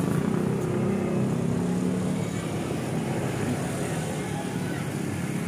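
Low engine rumble of a vehicle, loudest in the first few seconds and slowly fading.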